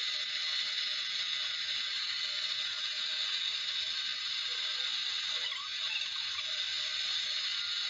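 Steady mechanical noise, a continuous high hiss that holds an even level.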